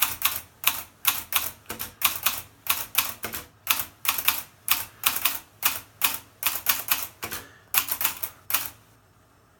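Hermes Baby portable manual typewriter being typed on: sharp key strikes at about three to four a second, in an uneven rhythm with a short pause before a last run of strokes, stopping near the end.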